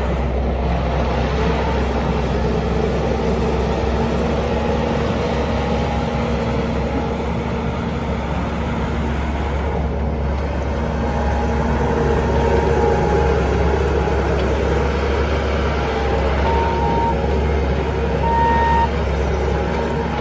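Bobcat T770 track loader's 92 HP Doosan diesel engine running steadily, rising a little in level about two-thirds of the way through, with a couple of brief high tones near the end.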